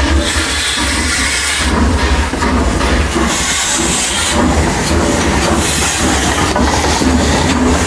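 Train running on rails, a steady heavy rumble with hiss and clatter.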